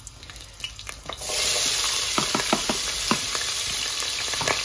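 A frying pan of hot vegetable oil sizzles, starting suddenly about a second in and going on steadily. Sharp clicks of a utensil against the pan sound over the sizzle.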